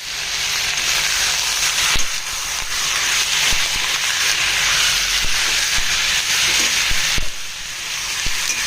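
Freshly added raw pork sizzling in hot mustard oil in a karahi: a loud, steady frying hiss with a few light knocks. The sizzle briefly drops about seven seconds in.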